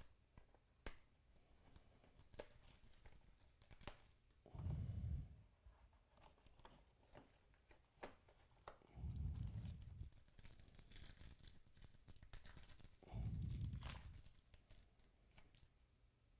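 Faint tearing and crinkling of baseball card packaging, with many small clicks and taps as the cards are handled. Three low, roughly one-second puffs, like breaths near the microphone, come about four seconds apart.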